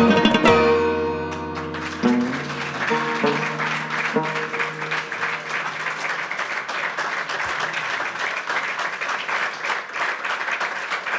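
Afghan rubab's final plucked chord ringing out and fading, with a few last soft notes, as an audience begins applauding about two seconds in and keeps clapping.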